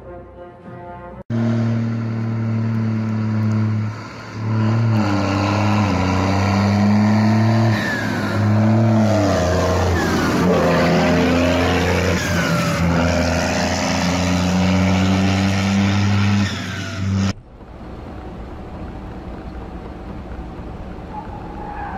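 Car engine running loud, its pitch stepping up and down, with a brief dip about four seconds in. It cuts off suddenly about seventeen seconds in, leaving quieter steady road noise.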